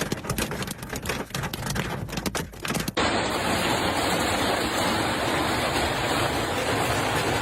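Heavy rain pattering with many sharp crackling hits. About three seconds in it cuts abruptly to a steady rushing noise.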